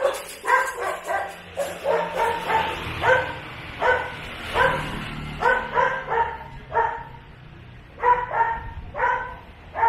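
A small dog barking over and over in short, high yaps, about two a second, with a brief pause about seven seconds in.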